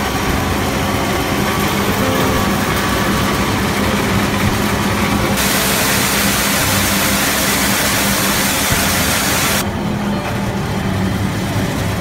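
NF28-36 maize posho mill running at steady speed, a continuous mechanical hum. In the middle a loud hiss of maize being ground and pouring out joins it, then drops away.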